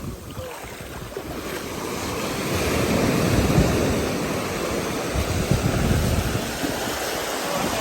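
Wind buffeting the microphone over a rushing noise that swells about three seconds in and then eases.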